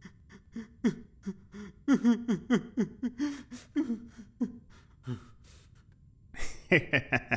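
A man laughing in a run of short, breathy bursts, about three a second, each falling in pitch; the laughter trails off about five seconds in. Near the end a man's voice rises into shouting.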